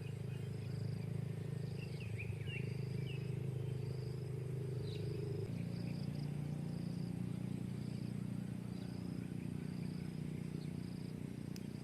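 Outdoor ambience of an insect chirping in a regular high pulse a little more than once a second, with a few short bird calls, over a steady low hum that changes pitch about halfway through.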